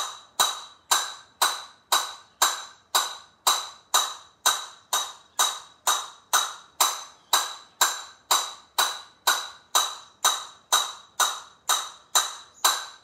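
Castanets played in single strokes (golpes), the ta and pi of the left and right hands, as an even beat of about two sharp clicks a second, each ringing briefly.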